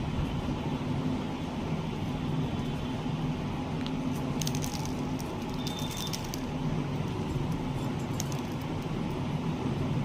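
A steady low hum runs throughout, with a cluster of light sharp clicks and ticks about halfway through and a brief high note among them.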